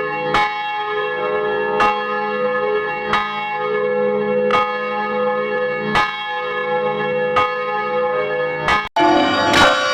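A church bell tolling slowly and evenly, one stroke about every second and a half, each stroke ringing on into the next. Near the end the sound cuts off abruptly and a different bell recording starts ringing.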